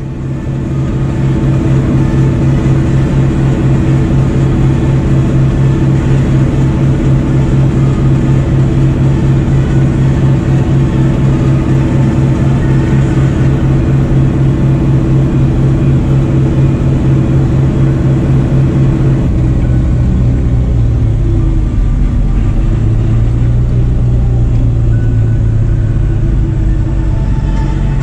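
Fendt tractor engine running steadily under road driving, heard from inside the cab as a steady low drone. About twenty seconds in, the engine note drops lower and wavers.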